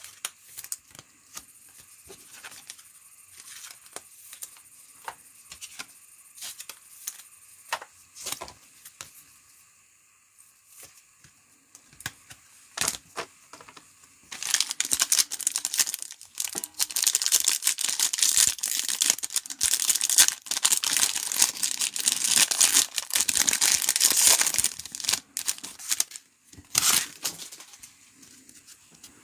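Light handling of trading cards and packaging, then foil trading-card pack wrappers being torn open and crumpled in a long loud rustle through the middle of the stretch, with a shorter burst near the end.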